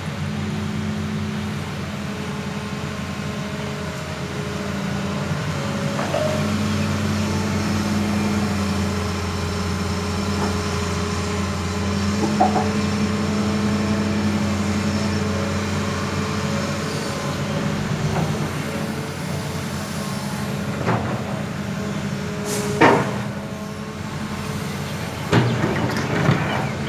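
Hitachi Zaxis 200 crawler excavator's diesel engine running under hydraulic load as it swings and digs, louder for several seconds mid-way, with a few sharp knocks near the end.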